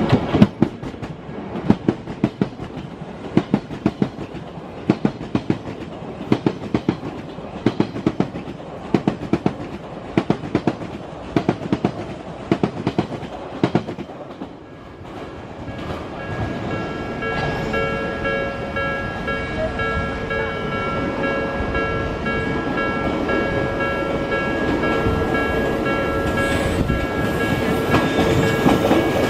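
An Odakyu train passing over rail joints, its wheelsets clacking in regular groups, for roughly the first fourteen seconds. From about sixteen seconds a level-crossing warning bell rings steadily, over a rising rumble of rail noise.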